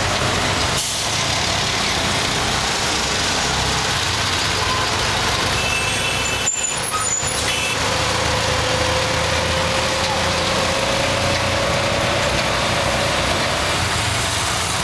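Dense street traffic heard from a rickshaw riding through it: engines and road noise running steadily. A faint whine rises slowly in pitch over the second half.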